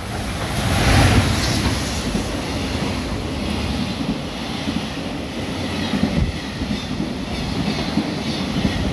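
JR Freight EF210 electric locomotive and its container freight train passing close by at speed. The noise is loudest as the locomotive goes by about a second in, then the long string of container wagons rolls past with a steady rumble.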